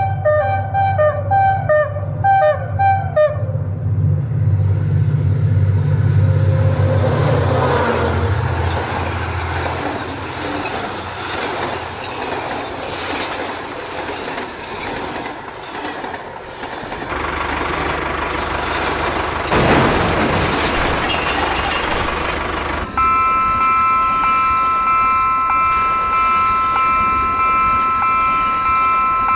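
Train running with a noisy rumble, then a horn sounding a steady multi-note chord, held without a break, from about three-quarters of the way in.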